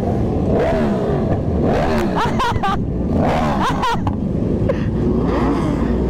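Motorcycle engines revving up and dropping back several times, with a dense rush of wind on the microphone underneath.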